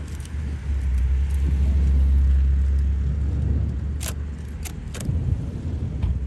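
Fireworks: a low rumble of booms that swells and fades, then three sharp pops in quick succession about four to five seconds in.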